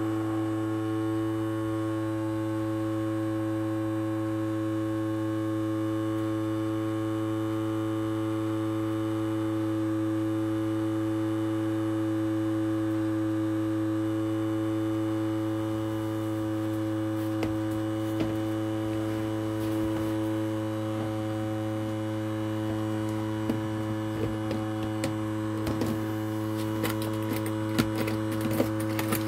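Small ultrasonic cleaner running with coins in its water-filled tank: a steady buzzing hum made of several even tones. From about halfway, faint irregular clicks join in and become more frequent near the end.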